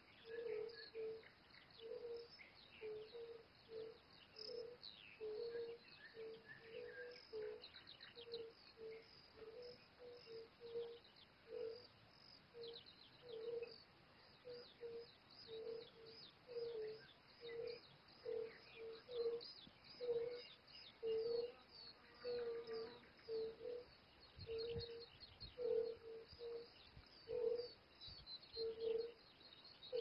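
Chorus of fire-bellied toads calling from the pond: short, soft hoots at one pitch, about one or two a second, several animals overlapping at slightly different pitches. Small birds chirp and twitter higher above them.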